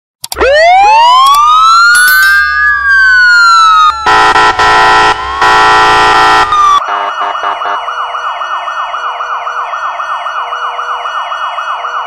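Police car siren sequence. A siren sweeps up and slowly falls back. Then come loud horn blasts in three bursts, and from about seven seconds in a fast electronic yelp of about four cycles a second.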